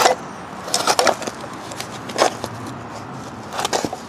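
A crumpled paper shop towel rubbing and crinkling against an engine piston and connecting rod as they are wiped clean, in four short rustling scrapes.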